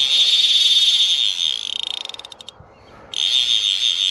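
Fly reel drag buzzing as a hooked trout runs line off the spool. The buzz slows into separate clicks about two seconds in, stops briefly, then starts again as the fish runs once more.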